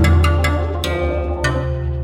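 Background music: sharp struck notes over a held low bass, gradually fading.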